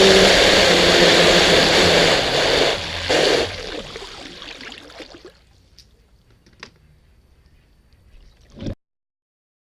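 Electric motor of a Fast Electric Mean Machine RC boat running with water rushing past the hull, recorded on board by a camera sealed in a condom cover. About two and a half seconds in the motor eases off, surges once more, and the water noise fades to near quiet, with a few faint knocks before the sound cuts off abruptly.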